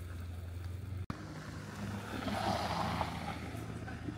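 Outdoor town street ambience at night: a steady low hum, broken by a sudden cut about a second in, with a soft rushing swell of noise in the middle.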